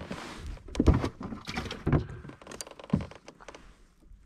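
Several hollow knocks and thumps against a plastic fishing kayak as a freshly caught crappie and the fishing gear are handled, after a brief rush at the start.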